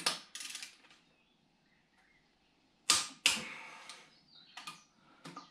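Sharp metallic clicks from a hand wrench working on engine bolts: one at the start, two loud ones about three seconds in, each with a short ring, then a few lighter clicks near the end.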